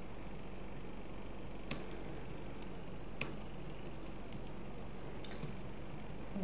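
Computer keyboard keystrokes: a few scattered key clicks, two of them sharper than the rest, over a steady low hum.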